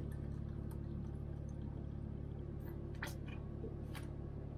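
A steady low hum, like a small motor running, with a few faint clicks and soft taps of a bottle and dishes being handled on a table.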